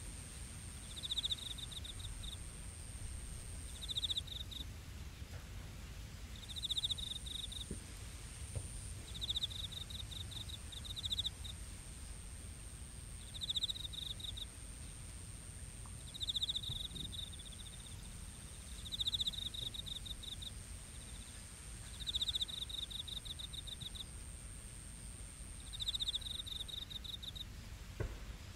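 Crickets chirping in short pulsed trills that repeat every two to three seconds, over a steady high-pitched tone and a low background rumble.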